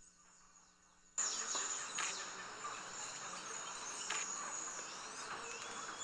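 Near silence for about a second, then rainforest ambience comes in suddenly: a steady high-pitched insect drone with short bird calls and a few sharp clicks over it.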